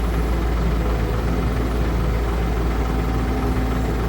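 Heavy diesel engine running at idle, a steady deep rumble.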